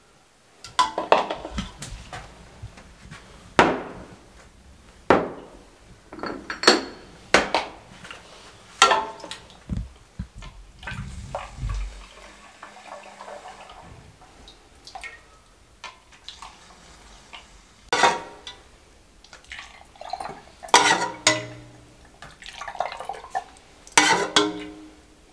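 Glass bottles, a metal ladle and a plastic funnel clinking on a steel tray while a thick milk mixture is poured into the bottles. Scattered sharp clinks, with liquid pouring and dripping between them.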